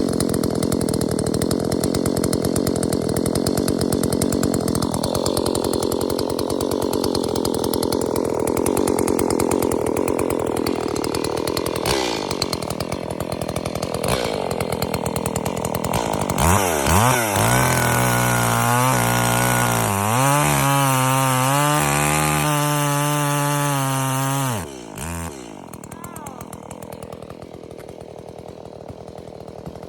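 Chainsaw running at speed, its engine pitch shifting up and down in steps during the second half, then dropping suddenly to a quieter idle about 25 seconds in.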